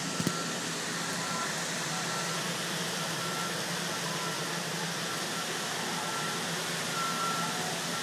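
Steady hiss of heavy thunderstorm rain, with faint, irregular high-pitched beeps coming and going and a brief click just after the start.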